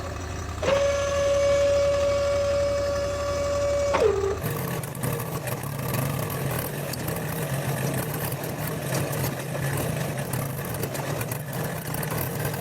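A machine's motor running steadily. From under a second in until about four seconds in, a steady high whine sits over it, then drops in pitch and cuts off, leaving a lower, rougher running sound.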